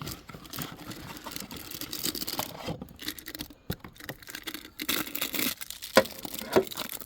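A new oil filter and its packaging being handled: irregular rustling and crinkling with scattered sharp clicks and knocks, the sharpest about six seconds in.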